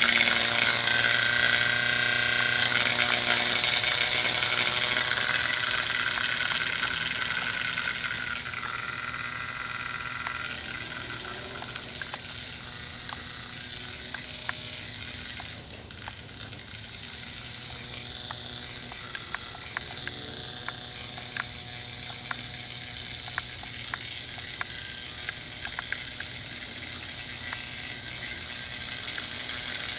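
Remote-controlled weed eater (string trimmer) running steadily, loud at first, then fainter as it moves off, and louder again near the end, with scattered sharp clicks and rattles.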